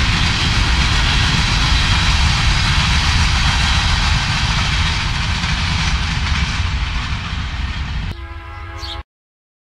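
Wheel-and-rail noise of a freight train's covered hopper cars rolling past: a loud, steady rumble and rush that fades over the last few seconds as the end of the train goes by. Just after eight seconds it gives way to a fainter steady tone with several pitches, and then the sound cuts off suddenly.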